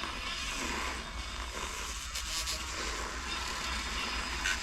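Manual milk frother churning milk into foam: a steady swishing noise, with a low hum underneath.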